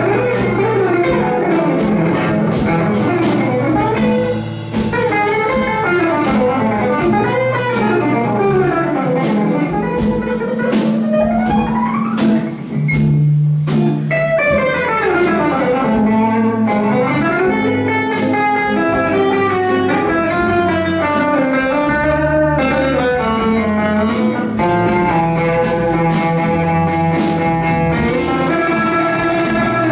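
Gypsy jazz band playing live: a lead guitar plays fast rising and falling runs over accompanying chords and a bass line.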